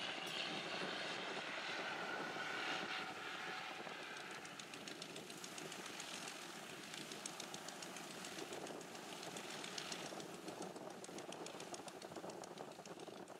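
A single-engine Cessna's piston engine and propeller droning as it climbs away after takeoff, fading over the first few seconds. From about four seconds in, a Cessna 172's engine runs at low taxiing power close by with a fast, even clatter.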